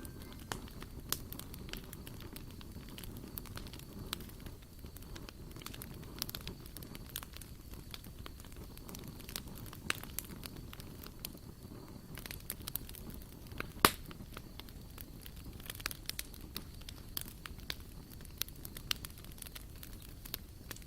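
Campfire crackling: irregular snaps and pops over a low rumble, with one louder pop about 14 seconds in.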